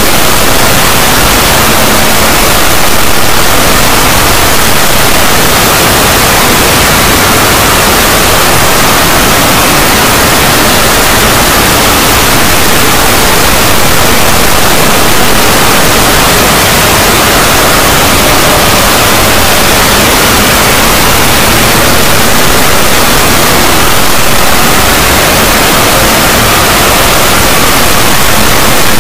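Loud, steady static hiss like white noise, unchanging throughout.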